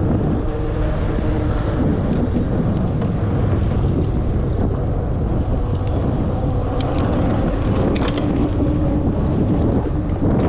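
Wind buffeting the microphone of a camera riding on an e-bike over off-road ground, with a faint steady hum underneath and a couple of sharp rattles about seven and eight seconds in.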